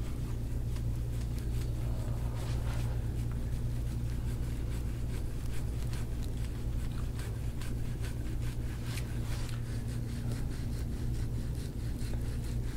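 Gua sha scraping tool dragged in short strokes over an oiled back, giving a string of small scratchy clicks and crunches, over a steady low hum.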